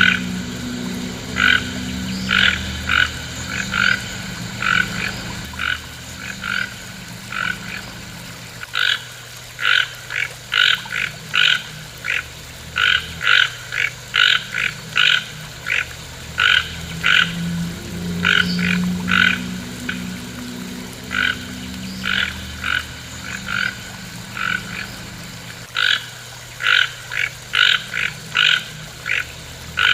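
A frog croaking over and over in short calls, about two a second, in runs broken by brief pauses, over a low hum that swells and fades.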